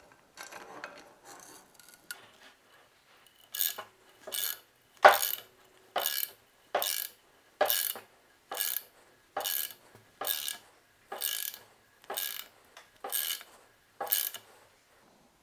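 Ratchet wrench tightening a nut on a carriage bolt, pulling the bolt into its press-fit hole in an aluminium table leg. After a few seconds of faint handling, the ratchet clicks in about a dozen short, even strokes, a little under one a second.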